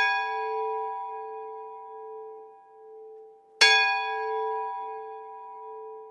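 A bell with a clear tone ringing out slowly from a stroke at the very start, then struck once more about three and a half seconds in and fading away again.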